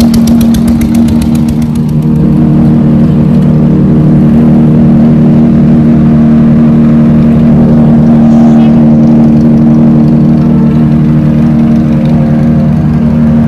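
Motorbike engine running steadily while riding, with a rapid, even knocking that fades out after about two seconds.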